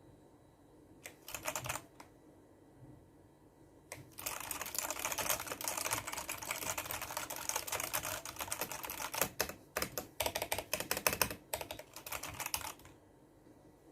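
Vortex VX9 Pro full-size mechanical keyboard with Outemu switches being typed on: a few keystrokes about a second in, then fast continuous typing from about four seconds in that stops shortly before the end.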